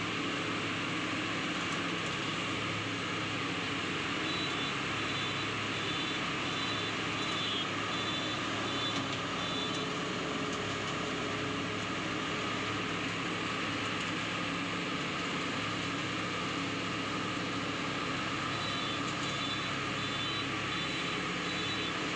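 Zoomlion combine harvester's engine and threshing machinery running steadily in a constant hum. A high, evenly repeated beeping sounds for several seconds, twice.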